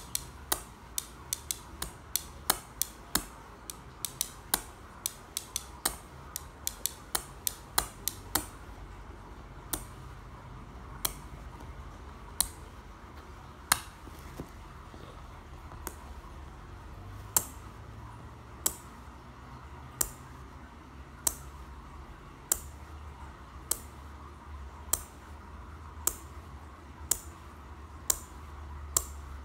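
Small glossy blue pool tiles tapped against each other, making sharp clicks. The tapping is quick and irregular for the first several seconds, then slows to single taps about a second or more apart.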